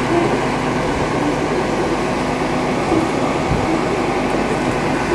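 Diesel train's engine idling steadily as it stands at the platform, held at a red signal.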